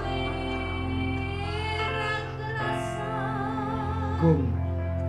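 A woman singing a Javanese love song into a microphone, holding long notes with a wavering vibrato and a short downward slide near the end, over a steady instrumental backing.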